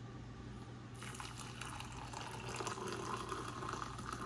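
Brewed coffee poured from a stainless steel French press into a mug. The pour starts about a second in and slowly grows louder as the mug fills.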